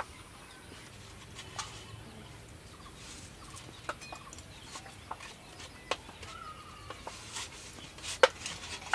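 A metal spoon clinking against steel cookware as chicken curry is scooped from a bowl onto rice in a steel pot: a few separate sharp clinks, the loudest near the end. Chickens cluck faintly in the background.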